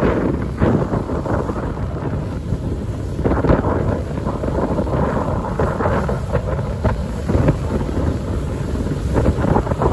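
Wind buffeting the microphone aboard a car ferry under way, gusting unevenly over the steady rush of the ship's running noise and the sea.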